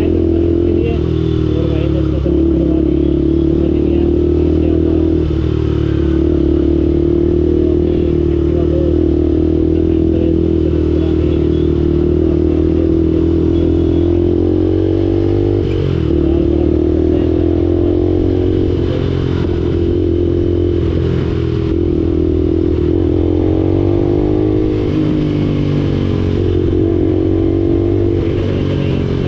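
Motorcycle engine running on the move, its steady note rising and falling a few times with changes in speed, over a constant low rumble.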